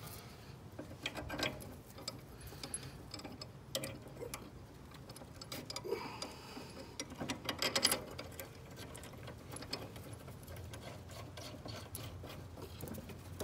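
Light metallic clicks and rattles of hands working a ride-on mower's front kingpin and steering arm while fitting a flat needle-roller thrust bearing and washers. A busier run of clinks comes about seven to eight seconds in.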